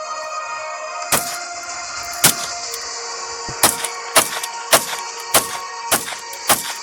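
Walther P22 .22 pistol firing eight sharp shots, two spaced ones and then a steady string about every half second, over background music.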